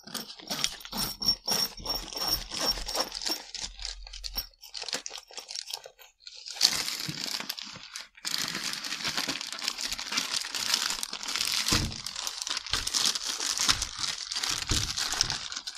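A zippered soft tripod case being opened with rapid clicking, then a clear plastic bag crinkling steadily as the wrapped tripod inside is handled.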